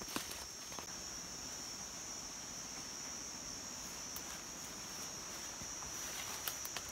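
Insects droning in a steady, high-pitched chorus, with a few faint clicks and handling rustles just after the start and again near the end.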